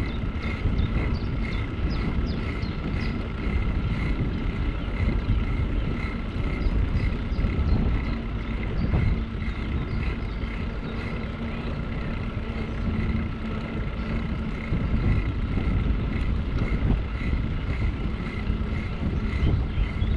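Bicycle riding along an asphalt road: wind rushing over the microphone and tyres rolling on the road surface make a steady rumble, with a faint regular ticking about twice a second.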